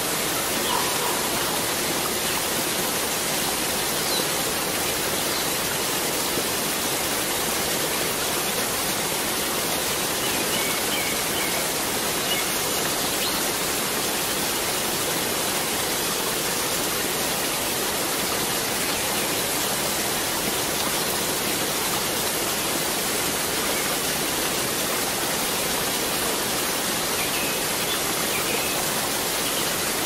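Waterfall, a steady, even rush of falling water, with a few faint bird chirps above it.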